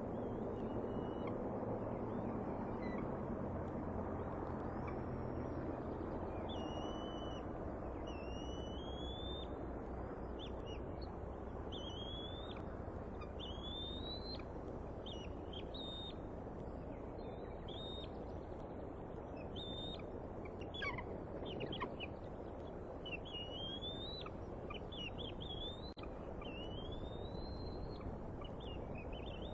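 Bald eagles chirping: a long run of short, high-pitched rising calls, one every second or so, over a steady low rushing background.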